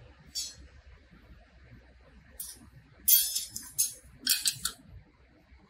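Metal clinks and scrapes as a sewing machine's flat webbing clamp bracket is handled and set onto the machine's carriage. There are several short scraping clatters, the loudest group about three seconds in and another just after four seconds.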